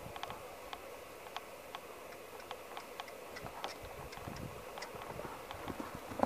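Hoofbeats of a red roan American Quarter Horse gelding loping on soft dirt under a rider: soft low thuds, with many light sharp clicks mixed in.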